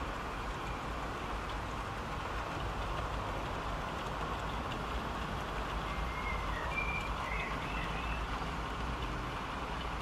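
Steady rushing noise with a low hum beneath it, and a few short high bird chirps about six to eight seconds in.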